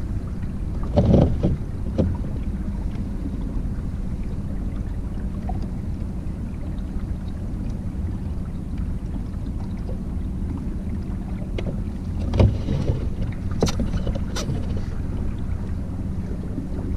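Minn Kota 55 lb-thrust trolling motor, fitted with a three-blade prop, running steadily and pushing a kayak through the water with a low, even hum. A couple of knocks sound about a second in and past the middle, with a few sharp clicks soon after.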